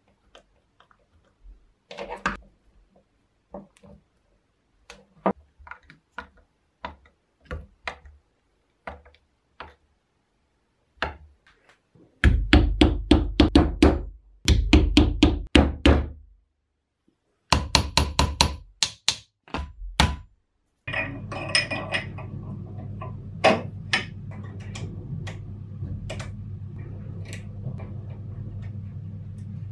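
Hand work on a vintage electric jack hammer during reassembly: scattered small clicks of a screwdriver and metal parts, then, about twelve seconds in, two runs of loud rapid knocks. From about twenty-one seconds a steady low hum sets in, with handling clicks over it as the chisel bit is fitted.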